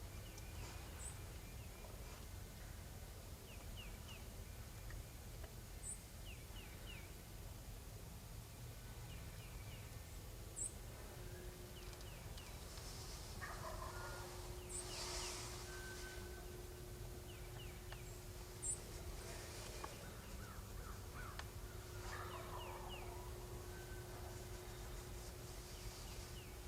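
Wild turkey gobbling twice, a descending rattle about halfway through and again near the end, with small birds chirping high and short throughout.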